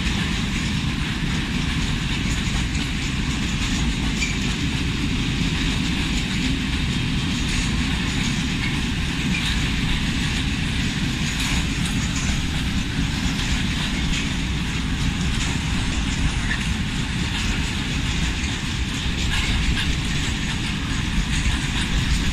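A train rolling past at steady speed: a continuous rumble of wheels on the rails, with irregular clicks as the wheels pass over rail joints.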